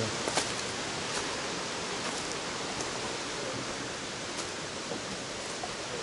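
Steady rushing of a waterfall and its stream, with a few faint ticks from footsteps on a leaf-littered path.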